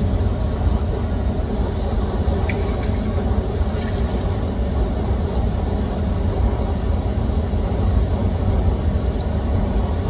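Steady rushing roar of river water pouring over a weir, with a deep low rumble.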